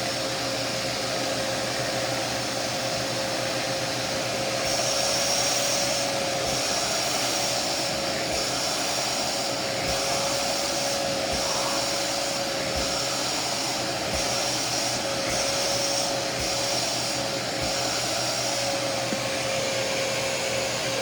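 Hoover Power Dash portable carpet shampooer running while shampooing carpet, its suction motor a steady whine. From about five seconds in, a higher hiss comes and goes roughly once a second.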